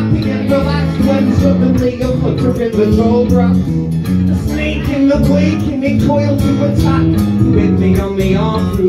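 Live band music: a strummed acoustic guitar and an electric bass playing a steady rhythm, with a man singing over them.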